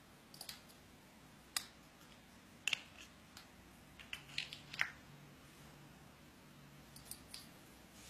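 Light, sharp clicks and taps of hard plastic discs as a small parrot picks them up in its beak and sets them down on plastic trays, scattered through the quiet, with a quick cluster of several about halfway through and a few more near the end.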